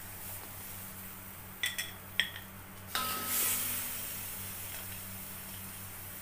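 Metal slotted spatula clinking twice against the dishware, then scraping through a steel wok as curry is scooped out, with a hiss that fades over a second or so. A steady low hum lies underneath.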